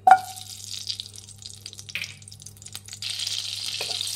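Butter hitting hot oil in a kadai: a sharp knock with a short ring at the start, then faint crackling. From about three seconds in, a steady sizzle grows louder as the butter foams and is stirred with a spatula.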